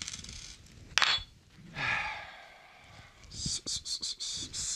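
A single sharp metallic clink about a second in as a tool is set down on the workbench, then rustling and scraping handling noise as the acoustic guitar is picked up and shifted on its cloth.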